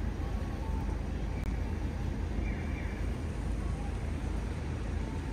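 City street ambience: a steady low rumble of road traffic and street noise.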